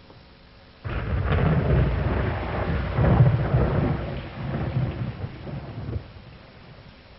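Thunder: a sudden clap about a second in, followed by a rolling rumble that swells and dies away about five seconds later.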